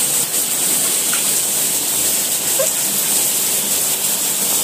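Steady rain falling on hard surfaces, an even hiss.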